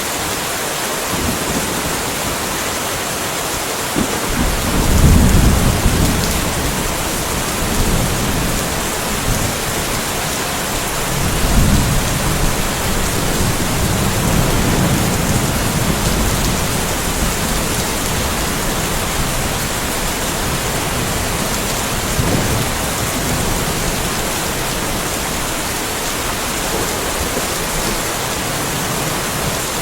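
Steady rain falling, with rolling thunder rumbling in low swells: a strong one about four seconds in, another from about eleven seconds lasting several seconds, and a brief one after twenty seconds.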